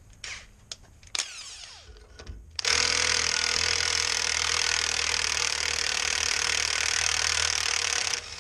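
Cordless impact wrench hammering for about five and a half seconds as it spins a rust-seized U-bolt nut off, the nut heated with a torch and soaked in penetrating oil so it breaks free. A few light clanks of the socket going onto the nut come first.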